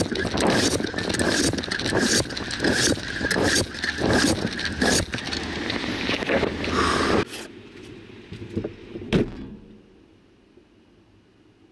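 Rough vehicle or street noise with scrapes and knocks that cuts off abruptly about seven seconds in, followed by a few clicks and then quiet.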